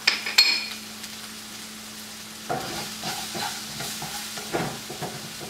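Chopped mushrooms and bell peppers frying with a faint sizzle in a nonstick pan, stirred with a slotted spatula that scrapes the pan in irregular strokes during the second half. There are two sharp metallic clinks near the start, over a steady low hum.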